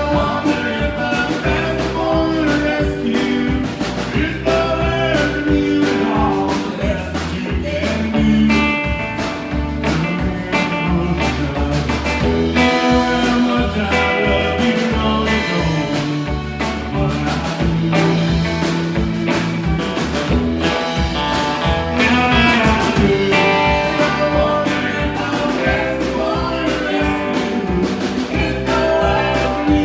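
Live country band playing a song: strummed acoustic guitar, bowed fiddle and a steady drum beat, with singing.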